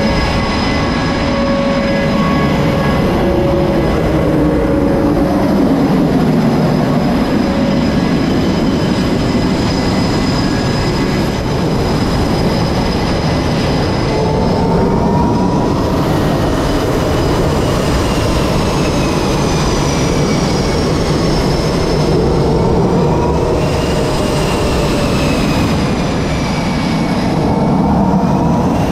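F/A-18 jet engines running: a loud, steady rush of engine noise, with high whining tones that slowly glide up and down in the second half.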